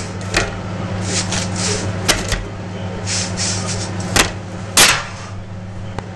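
Freshly baked bread loaves being set down and handled on a wire cooling rack: several sharp knocks and taps, the loudest a little under five seconds in, over a steady low hum.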